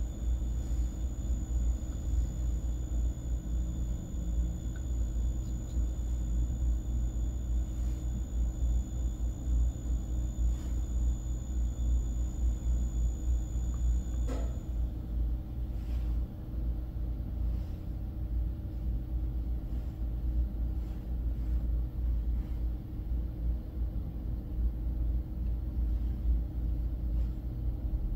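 Steady low rumble with a faint electrical hum, and a thin high whine that cuts off about halfway through. A few faint ticks.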